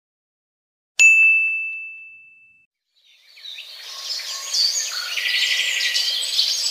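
A single bright ding rings out about a second in and fades away. About three seconds in, birds chirping fade in and carry on.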